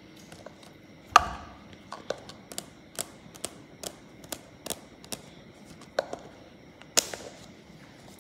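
Rigid plastic cup and snap-on lid being handled and worked open: a loud click about a second in, then a run of short sharp clicks and taps about two a second, with a few louder ones near the end.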